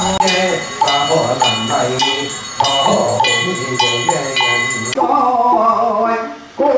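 Voices chanting in procession, with a metal ritual bell struck in a steady rhythm about twice a second, each strike ringing on. Near five seconds in the sound cuts to another stretch of chanting voices without the bell.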